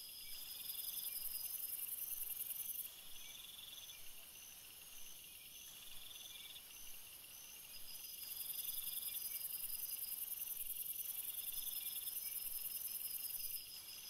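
Night chorus of crickets and other singing insects: several steady trills at different pitches at once, one of them chirping in bursts about a second long every two to three seconds. The highest, loudest buzz comes in about half a second in, stops near three seconds, and returns from about eight seconds until just before the end.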